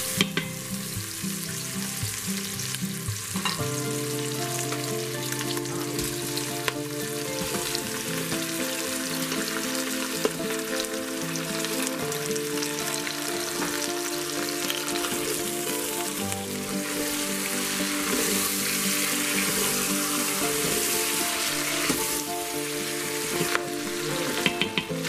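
Chicken pieces and onion sizzling in hot oil in an Instant Pot's stainless steel inner pot on sauté, with a wooden spoon stirring and clicking against the pot now and then. Soft background music plays under it.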